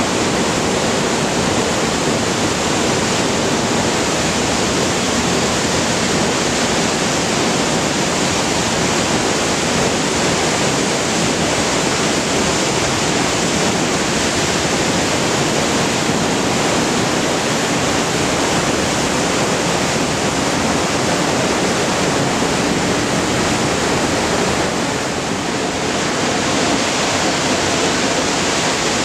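A tall waterfall plunging onto rocks, heard close up as a loud, steady rush of falling water.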